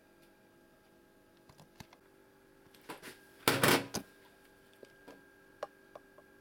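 Handling noise during surgery on a steel exam table: scattered small clicks and taps, then one loud scraping rustle lasting about half a second, a little past the middle, over a faint steady hum.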